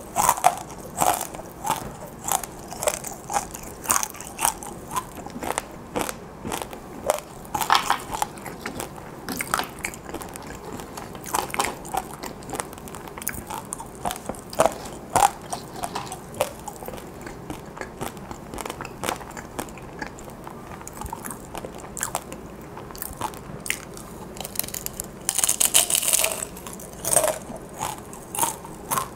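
Crunchy chewing of fried, sugar-coated dried chili pepper chips (gochu twigak): a steady run of sharp crisp crackles as they are bitten and chewed, with a dense burst of crunching a few seconds before the end.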